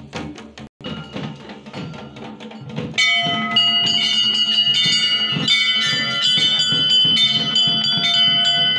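A drum beaten rapidly. About three seconds in, temple bells start ringing loudly and keep being struck over the drumming.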